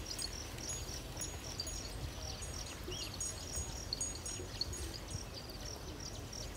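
Rural field ambience: a steady low rumble with insects chirping faintly and repeatedly high up, and a small bird chirp about three seconds in.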